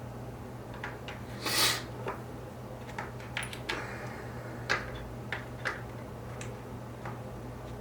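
Small plastic model-kit parts being handled at a workbench: scattered light clicks and taps, with a louder rustling scrape about one and a half seconds in.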